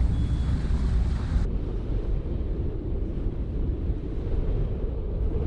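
Wind buffeting the microphone, a steady low rumble, aboard a sailboat under way in strong wind. The higher hiss drops away suddenly about a second and a half in.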